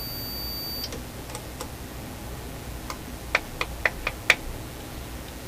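A steady high electronic beep that cuts off about a second in, then scattered sharp, light clicks, with a quick run of five clicks a little past the middle, the last one the loudest.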